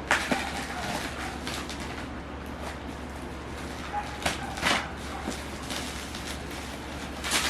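Cardboard box being opened by hand: a few short scraping and rustling sounds, the loudest a little past the middle and near the end.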